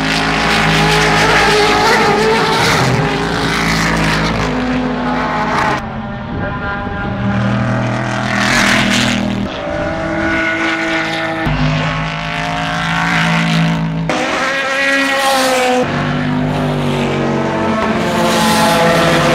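Race car engines passing at speed one after another, loud, with the engine pitch rising and falling as they go by. The sound changes abruptly several times.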